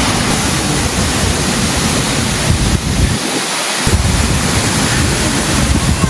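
Monsoon-swollen Bhagsunag waterfall running at heavy flow, a loud steady rush of falling water making a full racket. Wind buffets the microphone with an uneven low rumble that drops away briefly about halfway through.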